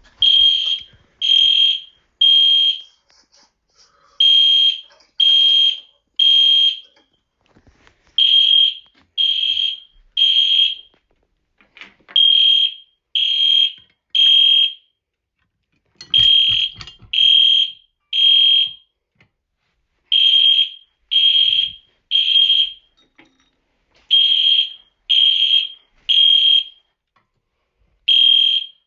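Fire alarm horns of an EST system sounding the temporal-three evacuation signal: three loud, high-pitched beeps, then a pause, repeating about every four seconds.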